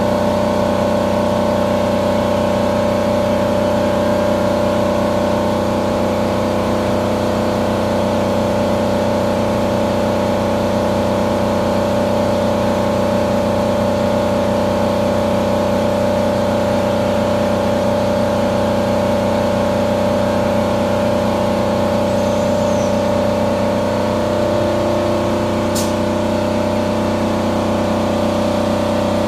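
Haas VF2 CNC vertical mill machining metal caliper brackets: a loud, steady cutting tone from the spindle and end mill, holding several constant pitches, under the hiss of flood coolant spray.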